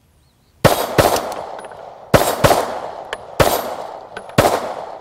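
SIG M18 9mm pistol fired in quick pairs of shots (double taps), each shot ringing out briefly before the next, as the trigger is run fast.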